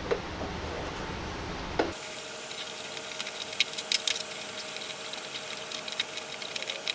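M10 x 1.5 hand tap being turned into a steel hole to cut threads, giving irregular sharp metallic clicks and ticks. A steady low hum runs under the first two seconds.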